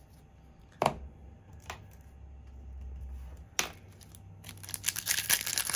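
Two sharp taps of cards being handled on the table, about a second in and again past three seconds, then the crinkling of a foil Double Masters booster pack wrapper as it is picked up from the row of sealed packs near the end.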